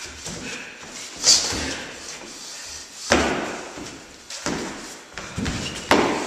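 Boxing gloves landing during sparring: sharp smacks about a second in, again near three seconds and near the end, with softer thuds between.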